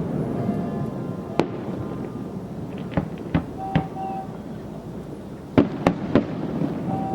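Fireworks going off: a single bang about a second and a half in, three more around three to four seconds, and a quick run of three near six seconds, over a steady low rumble. A short steady tone sounds twice around four seconds and again at the very end.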